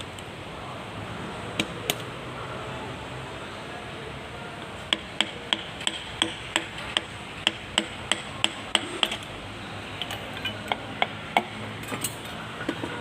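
Hammer tapping on metal: two light strikes, then a steady run of about a dozen taps at roughly three a second, then a few scattered taps near the end.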